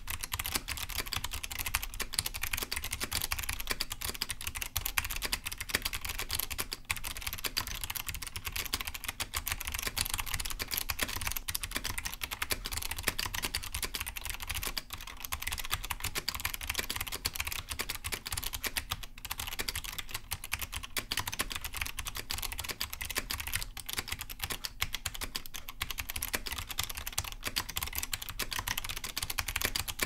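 Continuous typing on a Laser 2269 keyboard with SMK second-generation clicky switches, the Cherry MX-mount version of SMK's Monterey switches: a dense, unbroken stream of sharp key clicks, many a second.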